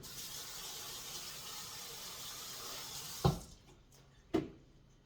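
Kitchen tap running steadily for about three seconds, then shut off, followed by two sharp knocks about a second apart.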